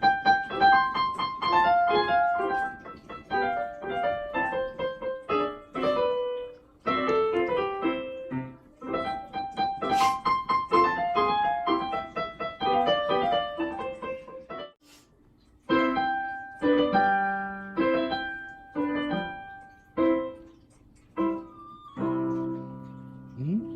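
Piano music: a melody of struck notes and chords that ends on a long held chord.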